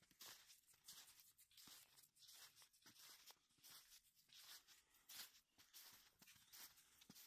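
Faint footsteps crunching in fresh snow, an irregular run of soft crunches a few per second.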